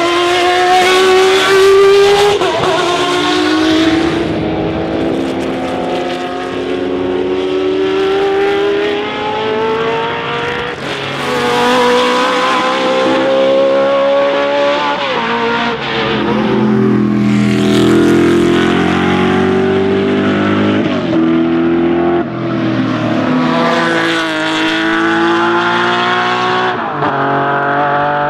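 Racing car engine running at high revs and accelerating hard, its pitch climbing and then dropping sharply at each gear change, several times over.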